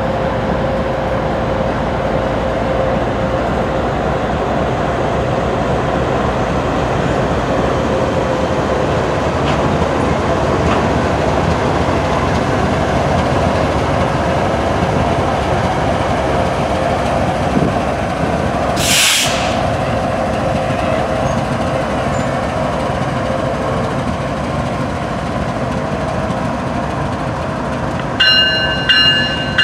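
Freight hopper cars of a BNSF work train rolling past on the rails: a steady rumble and clatter with a faint steady ring, and a brief hiss about two-thirds of the way through. Near the end the train's locomotive arrives and sounds its horn, a multi-note chord in short blasts.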